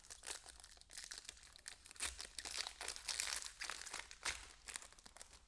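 Plastic card packaging being handled, crinkling and rustling as a quick, irregular run of small crackles.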